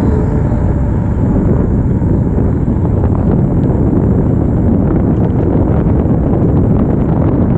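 Wind buffeting a GoPro action camera's microphone at riding speed on an e-bike: a loud, steady low rumble.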